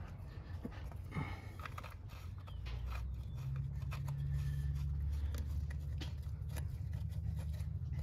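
Faint scattered metal clicks and scrapes as the shift lever is worked onto the transmission's shift shaft and a ratchet is handled. A low steady hum comes in about three seconds in and carries on.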